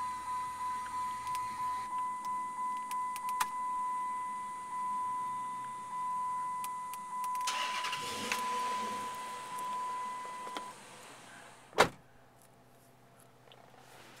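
Chrysler 300C's dashboard warning chime: a single high tone beeping about twice a second, then held as one steady tone that cuts off after about ten and a half seconds. Partway through there is a short rushing noise, and about twelve seconds in a single sharp knock, the loudest sound.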